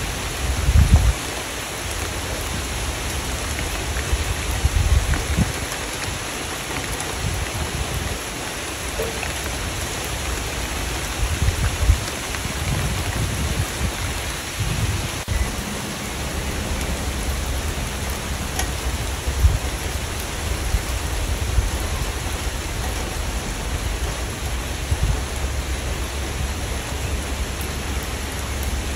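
Steady rain, an even hiss, with short low rumbles every few seconds, the strongest about a second in.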